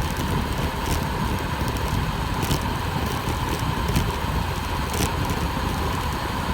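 Steady wind rush and road noise from a road bicycle coasting fast downhill on wet pavement, heard from a bike-mounted microphone, with a few sharp ticks scattered through.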